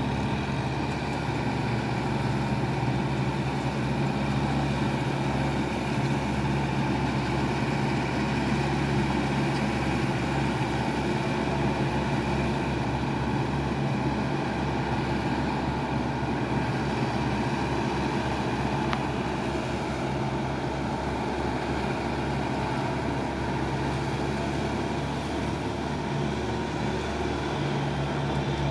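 Kubota tractor's diesel engine running steadily while working a muddy rice field, its pitch holding almost constant throughout.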